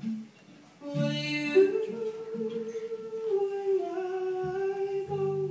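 Live acoustic pop song: a strummed acoustic guitar chord about a second in, then a single long held sung note that steps slightly down in pitch and back.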